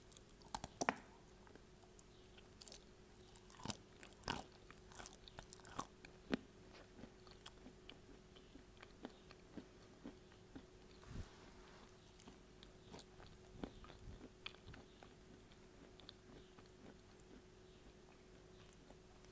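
A person biting and chewing lumps of edible clay close to the microphone: many sharp mouth clicks, coming thick and fast for the first several seconds, then thinning to scattered clicks.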